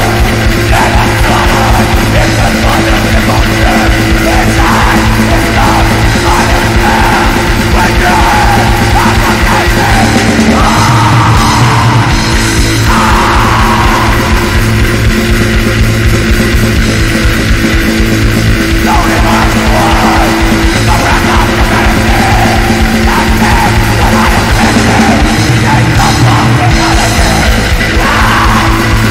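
Black metal song: a dense, loud wall of distorted guitars and drums with harsh yelled vocals coming in and out.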